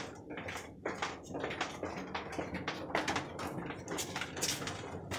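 Footsteps going down concrete stairs in a narrow stairwell, an irregular run of scuffs and taps about two to three a second.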